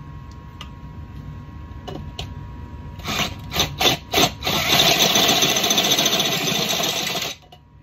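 Cordless drill running a step bit (unibit) through the metal of a hitch receiver, enlarging the pin hole toward 5/8 inch. About three seconds in it starts with a few short trigger pulses, then cuts steadily for nearly three seconds and stops abruptly near the end.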